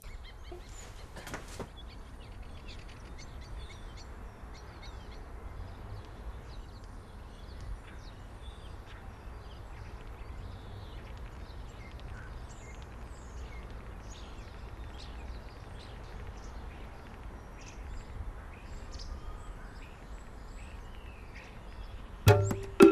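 Birds chirping and calling on and off over a steady low outdoor rumble. Louder sound, music, cuts in just before the end.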